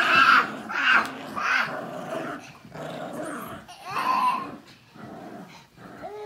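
Small white dog growling in a string of short bursts while playing with a rope toy.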